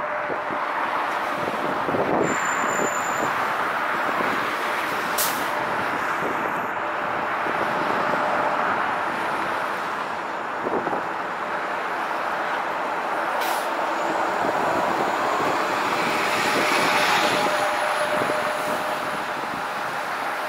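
Air Canada Airbus A320-family jetliner's twin jet engines running with a steady rushing noise, swelling about three-quarters of the way through as thrust comes up for the takeoff roll.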